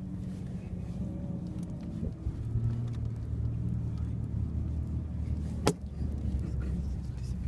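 SUV engine and tyres rumbling inside the cabin while driving over sand dunes. The low engine note grows stronger about two and a half seconds in. A single sharp knock comes near the end.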